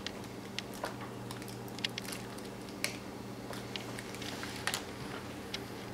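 Scattered small clicks and taps of hands handling a laptop LCD panel and its thin display cable, over a faint steady hum.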